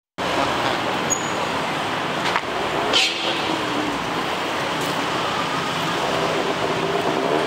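Outdoor city ambience: steady traffic noise, with faint voices of people around and a couple of small knocks.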